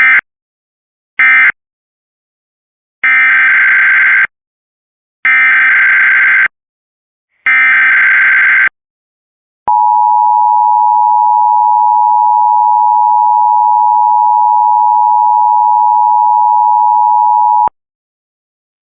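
Emergency Alert System tones. First come the last two short end-of-message data bursts. Then three longer SAME header bursts of screechy digital data, about a second apart, and then the steady two-tone EAS attention signal, held for about eight seconds before it cuts off.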